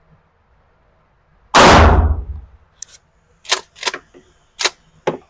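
A single shotgun blast from a Mossberg Maverick 88 pump-action firing 00 buckshot, about one and a half seconds in, ringing on for about a second. Several short, sharp cracks or clacks follow over the next few seconds.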